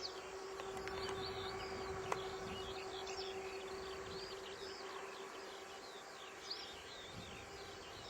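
Small birds chirping and twittering, with a faint steady hum beneath them and a single click about two seconds in.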